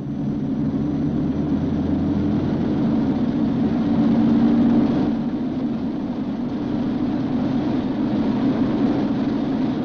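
The four Wright R-3350 radial engines of a B-29 Superfortress running up as the throttles open to full military power for takeoff. They grow louder over the first four seconds or so, then hold steady at a deep, even level.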